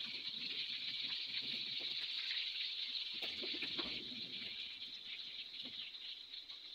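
Battered squid rings (calamares) deep-frying in hot oil in a pan: a steady sizzle with constant small crackles.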